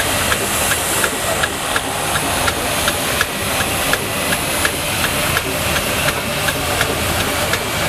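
Steam traction engine running slowly: a steady hiss of steam with a regular light beat about three times a second.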